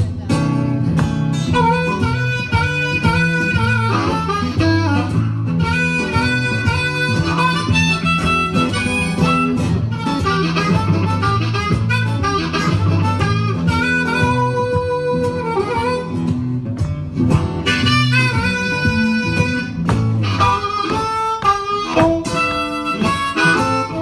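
Blues harmonica solo, played cupped against a vocal microphone, over acoustic guitar accompaniment with a repeating bass line.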